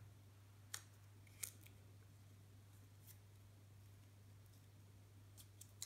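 Near silence over a steady low hum, broken by a few small, sharp clicks and crinkles as a plastic power adapter and its protective film are handled in the fingers: two about a second apart early on, one a few seconds in, and a quick cluster near the end.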